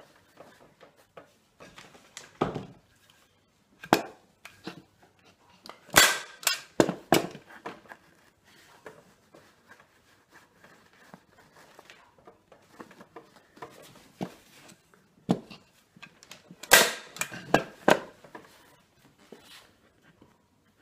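Staple gun firing staples through upholstery fabric into a chair seat: a series of sharp snaps, one about four seconds in, a few around six to seven seconds and another cluster after about fifteen seconds, with quieter handling noises between them.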